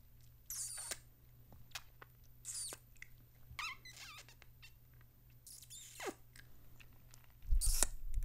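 Close-miked squeaky kissing and smooching lip sounds: about five short, high squeaky smooches with small wet lip clicks between them. The loudest comes near the end, with a low thump on the microphone.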